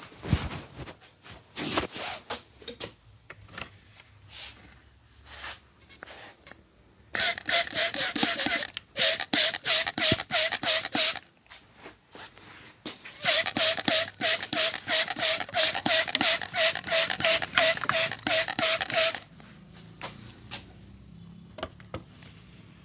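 Hands drumming fast and rhythmically on a person's head in an Indian head massage: two runs of rapid, even strokes lasting several seconds each, with scattered lighter taps and clicks before and between them.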